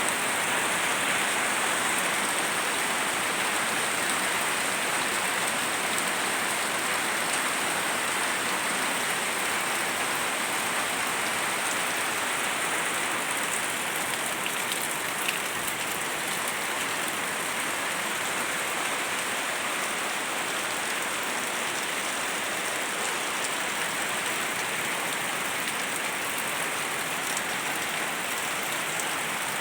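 Steady rain falling and pattering on surfaces, an even, unbroken hiss, with one small sharp tick about halfway through.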